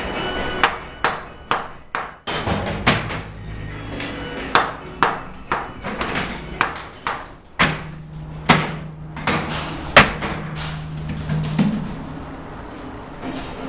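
A steel mason's trowel clinking and tapping against cement bricks and mortar in a dozen or so sharp, irregular strikes, some ringing briefly, as mortar is packed into the joints. A low steady hum lies underneath.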